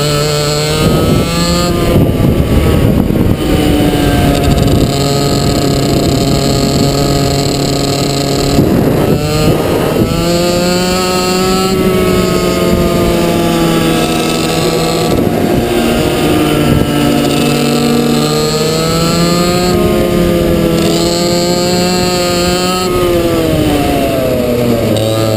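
Two-stroke racing kart engine heard onboard, running at high revs and holding a steady note on the straights, then dropping in pitch and climbing again each time it slows for a corner, several times.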